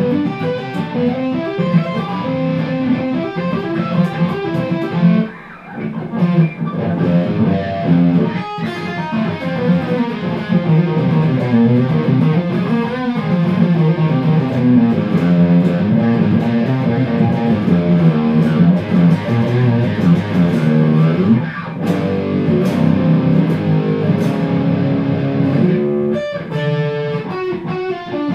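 Hardluck Kings Spider electric guitar with Seymour Duncan Nazgul (bridge) and Sentient (neck) pickups, played in a fast lead run of quick single notes, with a short break about five seconds in.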